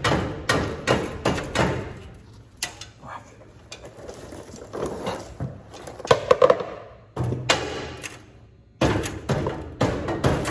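Repeated hammer blows, struck in quick runs of about two to three a second, with a short pause before a fresh run near the end, as a tight-fitting part is driven into place.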